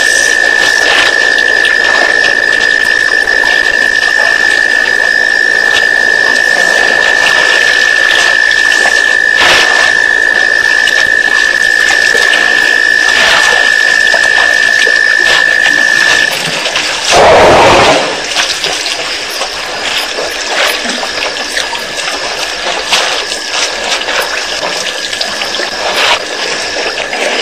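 Elephants drinking at a waterhole: water sloshing and splashing under a steady hiss, with a steady high-pitched whine that cuts off about two-thirds of the way through. Shortly after, a brief loud whoosh.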